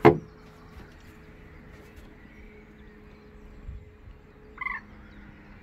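A sharp knock at the very start, then a short bird call about four and a half seconds in, over a faint steady hum.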